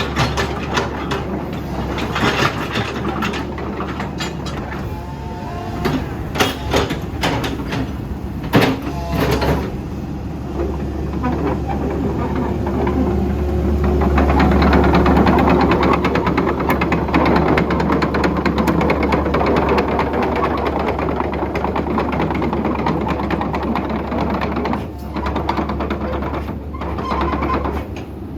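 Komatsu PC128US-8 excavator's diesel engine running as the machine is operated. Metal clanks and knocks come in the first third. From about halfway through the engine works harder under hydraulic load, louder and fuller.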